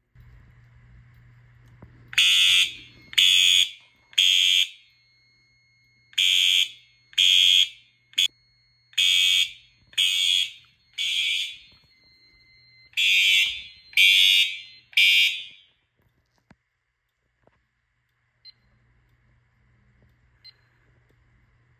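FCI HE-8F-STW electronic horn strobes sounding a fire alarm in the temporal-three pattern: three short blasts, a pause, then three more, repeated about four times before they stop.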